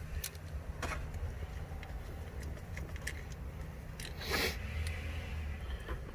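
Scattered metallic clicks and clinks of a ratchet and 13 mm socket working the shifter's mounting bolts, with a brief metal rattle about four seconds in, over a low steady hum.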